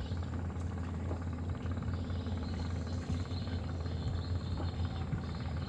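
A steady low engine drone, a motor running evenly out of sight, under open-air ambience.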